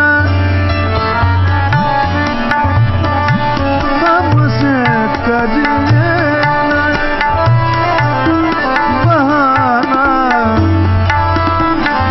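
Hindustani classical vocal performance. A male voice sings wordless melodic runs that bend and glide in pitch, over a tabla keeping time with deep, resonant bayan strokes that sometimes slide in pitch. A harmonium follows the melody, with a tanpura drone beneath.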